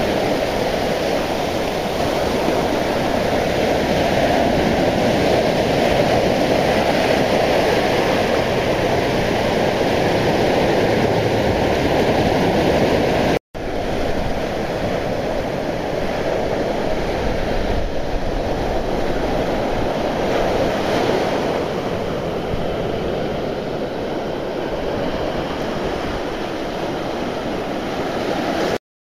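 Sea surf breaking and washing up a sandy beach, a steady rush of waves. It drops out for an instant about halfway through and stops just before the end.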